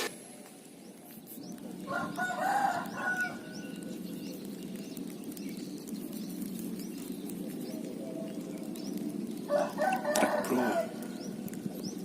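A rooster crowing twice, each crow a little over a second long, about seven and a half seconds apart, over a steady low background noise.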